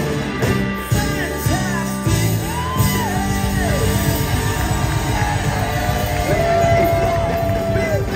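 Live pop-rock band playing through a hall PA: electric guitars, bass, drums and congas under a male lead vocal that holds a long note near the end.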